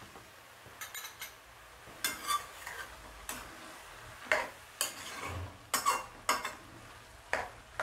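Steel spoon scraping and clinking against a metal kadai as chopped mustard greens are stirred and turned over, in a series of separate, irregular strokes.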